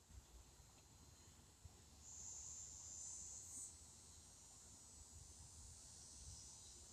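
Faint, steady high-pitched insect chorus, louder for about a second and a half starting some two seconds in, over a faint low rumble.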